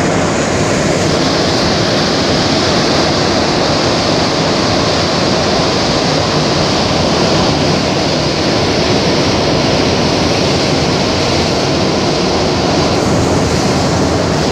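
Rubber-tyred Montreal metro train running at speed through a tunnel, heard from inside the car: a steady, loud rumble and hiss. The high hiss eases near the end as the train nears a station.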